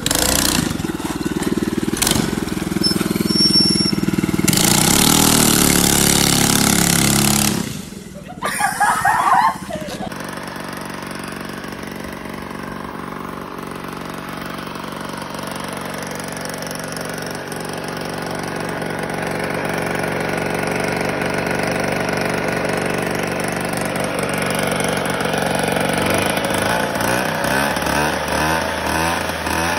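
A minibike's small engine running and revving as it is ridden. After a cut about ten seconds in, a Kinetic moped's small two-stroke engine with an aftermarket Tecno exhaust idles steadily at close range. Its note grows louder and changes near the end.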